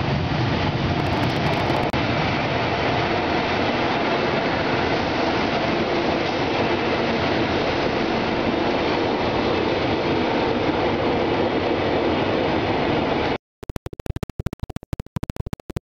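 Swiss passenger train rolling past along a station platform: a steady, even rumble of the moving carriages. It cuts off suddenly about 13 seconds in, and is followed by broken, stuttering fragments of sound.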